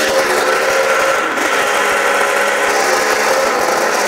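Three-cylinder snowmobile engine running steadily, with no radiator in its looped cooling circuit, being run hot on waterless coolant.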